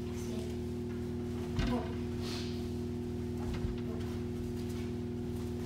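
Dull thumps of feet stepping on judo tatami mats, about a second and a half in and again around three and a half seconds, over a steady electrical-sounding hum.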